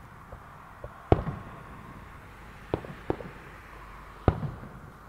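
Aerial fireworks bursting at a distance: a series of sharp bangs, each followed by a short low rumble. The loudest comes about a second in, with a pair close together near the middle and another loud bang near the end.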